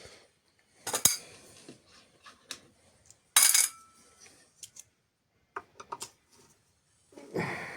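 Small steel screws and a hand tool clinking and clattering against metal as they are handled and set down during motor disassembly: a few sharp clicks, the loudest about one and three and a half seconds in, then a scatter of lighter ticks.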